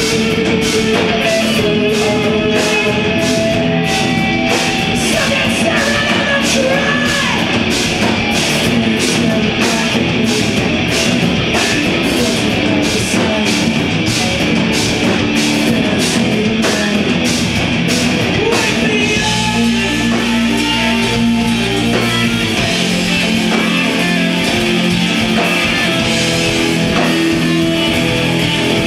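Live progressive-metal band playing amplified: distorted electric guitars, bass and drums. A steady beat of about two hits a second drives the first two-thirds. Then the beat drops away and the band moves into held, sustained chords.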